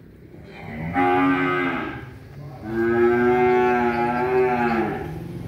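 Young Charolais-cross cattle mooing twice: a short call about a second in, then a longer one that drops in pitch as it ends.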